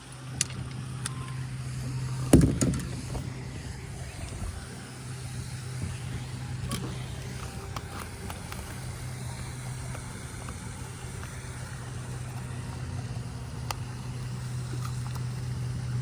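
A steady low engine hum, with a sharp thump about two and a half seconds in.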